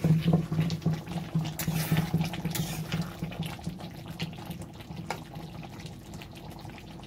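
Spatula stirring a simmering vegetable curry in a metal kadai: the thick gravy sloshes and bubbles, with the spatula scraping the pan. It is busiest in the first few seconds and dies down toward the end.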